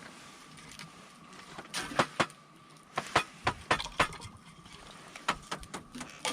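Wood fire crackling: sharp, irregular pops and snaps from burning firewood, coming in a dense cluster about two to four seconds in and a few more near the end.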